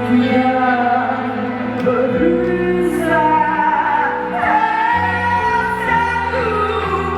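A singer performing a song with band accompaniment, holding long notes over sustained bass notes.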